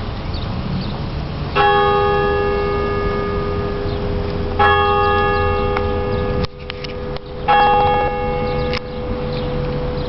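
Church tower bell struck three times, about three seconds apart, each stroke ringing on until the next. The sound drops out briefly twice just before the third stroke.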